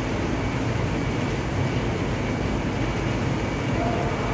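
Fairly heavy rain pouring steadily onto a wet concrete yard, a dense, even hiss with no let-up.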